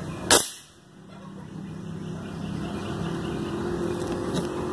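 A single airgun shot about a third of a second in: one sharp report that dies away quickly, followed by a steady low hum.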